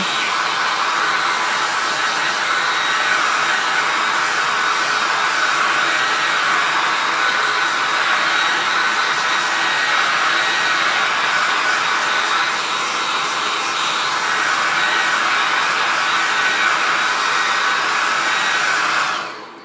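Handheld hair dryer running on high, a steady rush of air that cuts off suddenly near the end.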